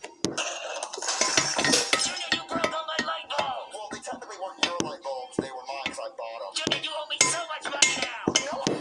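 Irregular metal clicks and clinks from a steel 3-ton jack stand being worked by hand at its ratchet column and lock handle, over background music.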